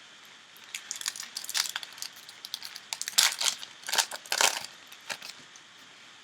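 Foil trading-card pack wrapper being torn open and crinkled by hand, in irregular crackling bursts that are loudest in the middle.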